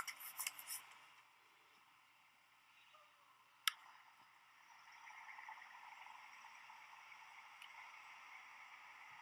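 Faint distant vehicle noise: a soft, even hiss that grows a little louder from about the middle on, with one sharp click a little over a third of the way in.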